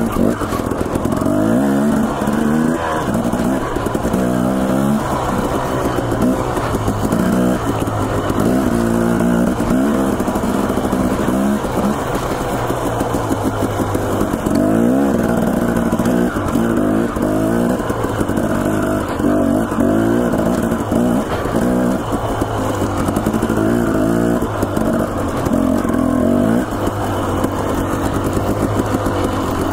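Dirt bike engine running hard, its pitch rising and falling over and over as the throttle is opened and shut.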